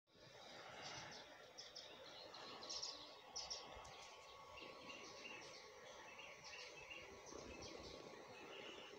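Near silence with faint background hiss and repeated short, high-pitched chirps in small groups.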